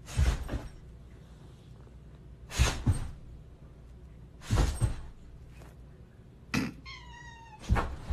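A dog's paws thumping on a carpeted floor in clusters about every two seconds as it lunges around a cat, with a short cat meow just before the last thumps.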